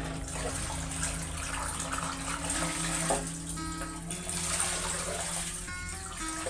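Water pouring and splashing from a plastic basin into a plastic bowl and then tipped out, as chopped young jackfruit is rinsed. Background music runs underneath.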